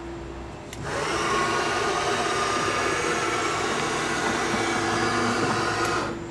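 Table of a Lagun KMC 717 CNC knee mill traversing under power: a steady whir from the axis drive, with several faint steady tones, that starts about a second in and cuts off suddenly shortly before the end, over a low machine hum.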